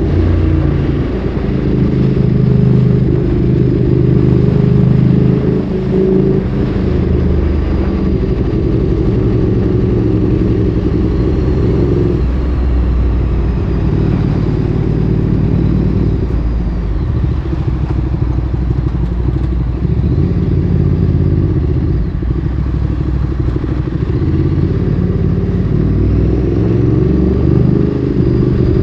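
Ducati Streetfighter 848's L-twin engine through a Termignoni exhaust, heard while riding. Its pitch steps up and down with throttle and gear changes, settling to lower, steadier revs in the middle and climbing again near the end.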